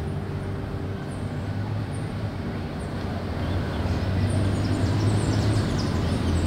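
Audi e-tron electric SUV rolling slowly toward the listener at low speed: a low steady hum with road noise, growing a little louder about four seconds in as it comes close.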